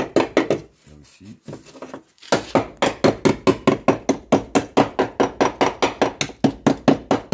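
Rapid hammer blows on the rusted steel windscreen frame of a Mercedes truck cab, chipping away rust, about five a second. They stop for about a second and a half near the start, then carry on.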